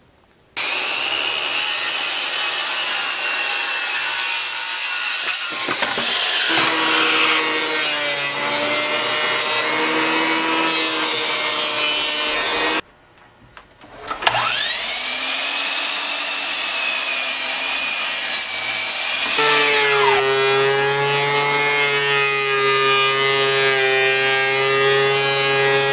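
Woodworking power tools running through aromatic red cedar, a motor whining steadily throughout. It stops for a moment near the middle, then spins back up with a rising whine and settles, turning to a deeper hum a few seconds before the end.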